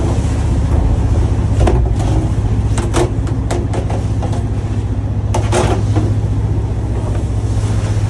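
Lobster boat's diesel engine running steadily under way, a constant low drone with wind and sea noise over it. Several short, sharp knocks break through about two to three and a half seconds in and again about five and a half seconds in.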